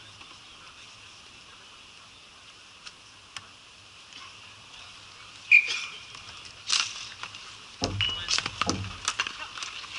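Ball hockey play on an outdoor sport-tile rink: a sharp clack about five and a half seconds in, then a busy run of stick-and-ball clacks and knocks in the last few seconds as play comes toward the net.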